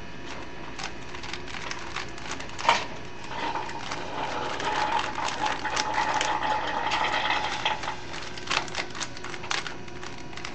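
Plastic Rubik's Cube layers being turned, clicking in quick irregular runs, with one louder click about a third of the way in.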